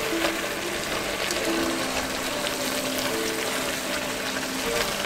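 Wine sizzling steadily in a hot Dutch oven as it deglazes the browned bits, with a few light scrapes of a spoon on the pan. Background medieval-style music runs underneath, a held drone note with a slow melody of sustained notes over it.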